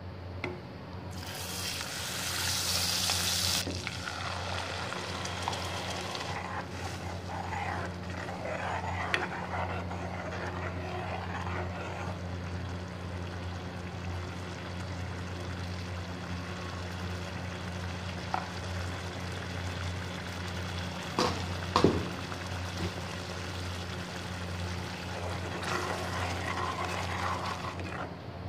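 Butter sizzling as it melts into hot oil in a metal kadai, a loud hiss for about two seconds, followed by quieter frying and ladle stirring in the pan, with two sharp knocks of the ladle against the pan a little past the middle. A steady low hum runs underneath.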